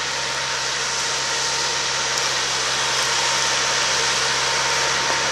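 Tractor engine running steadily under load as it pulls a seven-body moldboard plough through the soil, heard from across the field: a steady hum under a constant hiss.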